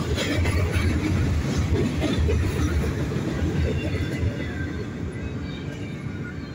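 Freight train cars rolling past at close range: a steady rumble of steel wheels on rail with clicks as the wheels pass, easing slightly after about four seconds as boxcars give way to double-stack container cars.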